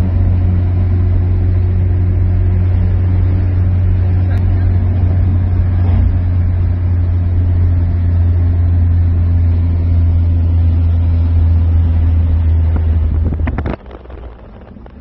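Car engine droning steadily at a constant cruising speed, heard from inside the cabin. Near the end the drone cuts off abruptly to a much quieter rush.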